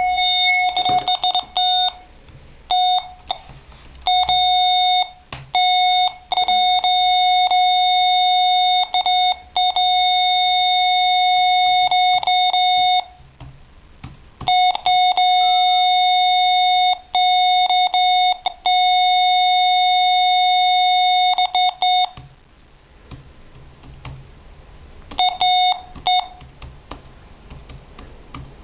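Electronic beeper of a switched-off device sounding one steady pitch in an irregular pattern of short beeps and long unbroken tones, two of them lasting about six seconds, stopping for a few seconds and then giving a few more short beeps near the end. The device shows a flat-battery warning while off, and the owner likens the beeping to Morse code or an SOS.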